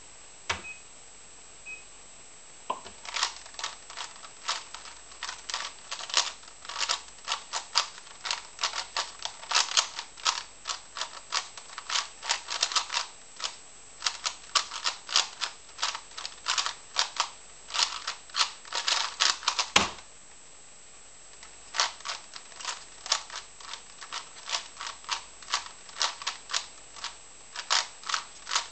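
A plastic 3x3 puzzle cube being turned at speed: a dense, rapid run of clicks and clacks that starts about three seconds in, after a few short timer beeps. The clicking breaks off with a single sharp knock a little past two-thirds through, as the timer is stopped, and resumes after a short pause.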